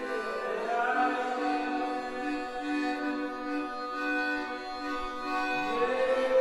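Slow music of long, held notes. The pitch slides upward about half a second in and again near the end.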